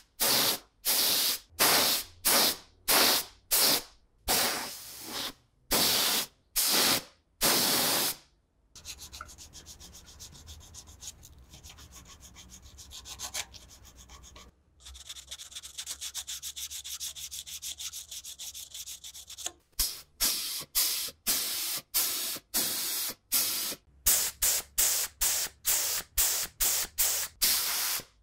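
Compressed-air paint spray gun firing short hissing bursts, about one a second, onto small metal scale parts. About 9 s in it gives way to abrasive paper rubbing a small metal bracket by hand, louder from about 15 s. From about 20 s the spray gun resumes in quicker short bursts.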